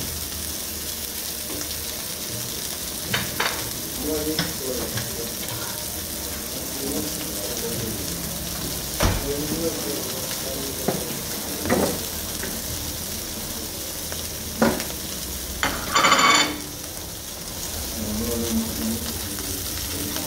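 Köfte patties sizzling on a charcoal grill, a steady hiss. Occasional sharp clicks and knocks come through it, and there is a louder, brief scrape about three quarters of the way through.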